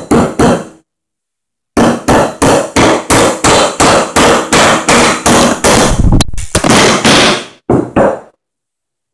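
Framing hammer driving a nail into a 2x4, striking steadily at about four blows a second after three quick opening taps. Near the end the blows give way to a longer, heavier clatter and a couple of last knocks, then the sound stops.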